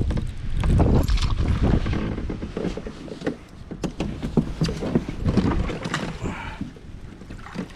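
Wind buffeting the microphone, with water slapping and knocking against a fishing kayak's hull. The wind rumble eases after the first couple of seconds, leaving scattered sharp knocks.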